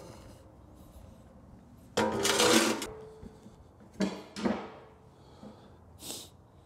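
Aluminum approach ramp being slid into the end of a steel lift ramp: a ringing metal scrape and clatter about two seconds in, then two shorter knocks about four seconds in as it settles.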